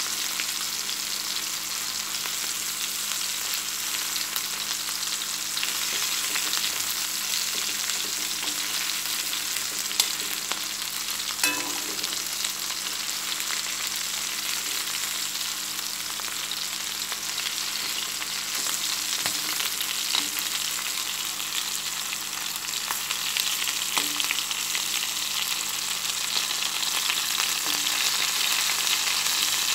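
Chicken pieces shallow-frying in hot oil in a pan, a steady sizzle, with a couple of sharp clicks around ten and eleven seconds in.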